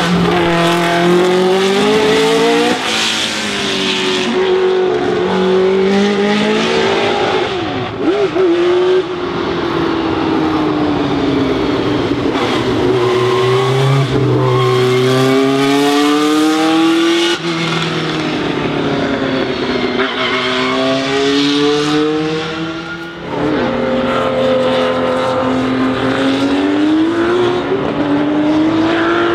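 Historic Formula 1 cars running hard one after another. The engine note climbs and falls again and again with gear changes and passes, and briefly drops away twice.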